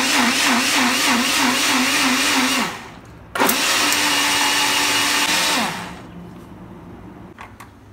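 Personal blender's motor grinding a thick tomato masala paste, its pitch wavering about three or four times a second as the paste churns. It stops for a moment, runs again for about two seconds at a steady pitch, then winds down, with a few faint clicks near the end.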